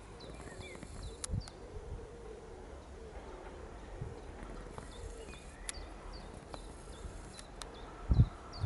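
Small birds chirping in short, repeated calls over a faint steady hum, with a low thump near the end.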